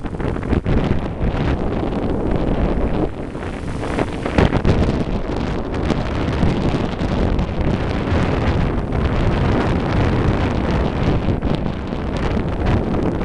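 Wind buffeting the microphone of a vehicle moving along a rough dirt road, over a steady rumble of the ride, with a few brief knocks.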